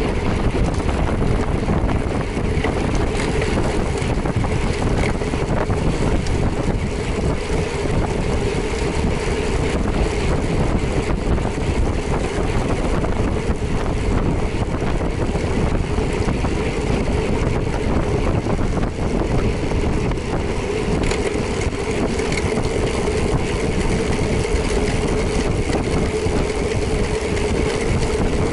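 Motorcycle ridden at speed: heavy wind rush over the microphone with a steady engine drone underneath.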